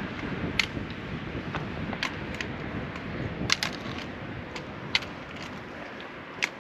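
Footfalls of a hiker walking on a rocky mountain trail: sharp clicks on stone about once a second, irregularly spaced, over a steady background hiss.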